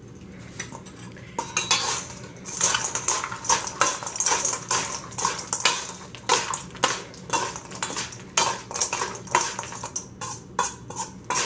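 Metal serving spoons clinking and scraping against a stainless steel mixing bowl as a salad is tossed. It is a quick, irregular clatter that starts about a second and a half in.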